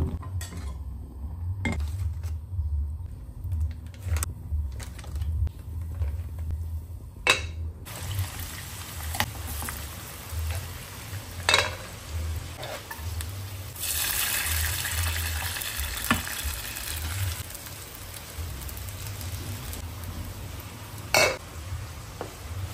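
Cooking at a gas hob: pots and utensils knocking sharply now and then over a steady low hum, with a loud hissing sizzle for a few seconds midway. Near the end a stone pestle knocks on a stone mortar as the sambal grinding starts.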